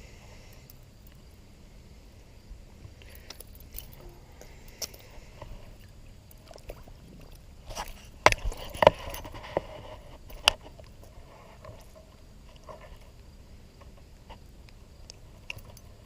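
Close handling noise: scattered clicks and light rattles, busiest and loudest about eight to ten seconds in, over a steady low rumble.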